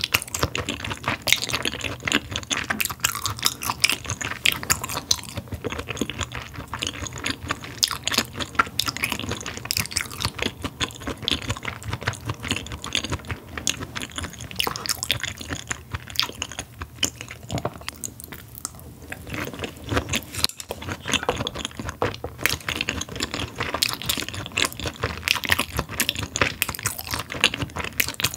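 A person chewing raw Hanwoo beef close to the microphone: a steady run of small wet clicks and smacks of mouth and teeth on soft raw meat, with a brief lull in the last third.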